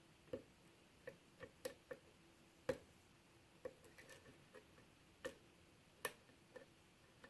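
Small, irregular metallic clicks and ticks of a short hook pick working the pins of a six-pin Euro cylinder lock with a Yale Y1 keyway during single-pin picking. About a dozen faint clicks, the sharpest about three seconds in and about six seconds in.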